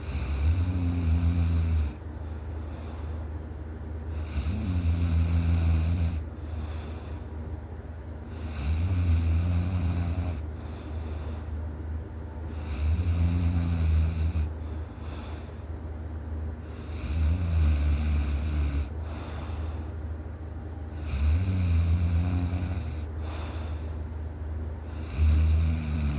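A person snoring in deep sleep: a loud, low, rattling snore about every four seconds, each lasting about two seconds, with quieter breathing between.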